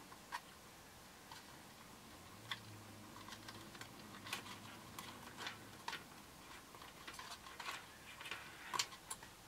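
Faint, irregular small clicks and rustles of wires and a plastic connector being handled and pulled down through a drone's plastic body shell.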